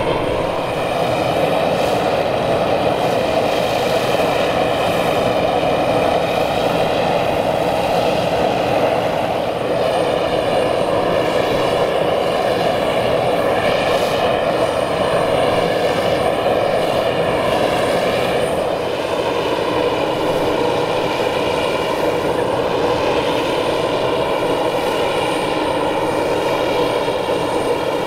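Europrop TP400-D6 turboprop engines of an Airbus A400M Atlas running on the ground, a steady drone with a high whine over it, easing a little about two-thirds through.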